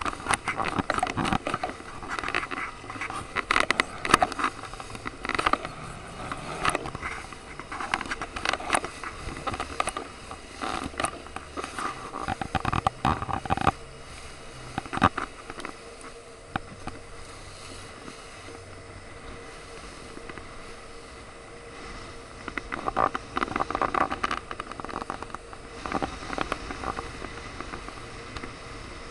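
Wind noise and water splashing on choppy water from a small boat under way, uneven and gusty, with many sharp crackles of spray. It eases off for a stretch in the middle and picks up again near the end.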